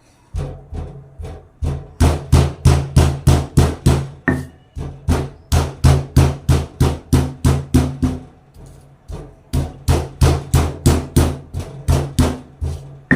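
Knife chopping rapidly on a wooden cutting board, about four strokes a second, in bursts broken by short pauses.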